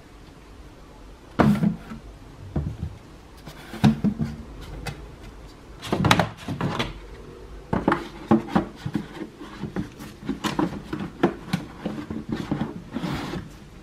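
Hollow knocks and thumps of a cardboard shoebox being handled by gloved hands, with single thuds about 1.5, 4 and 6 seconds in. These are followed by a run of quicker light taps and rubs as a sneaker is set down and moved on the box lid.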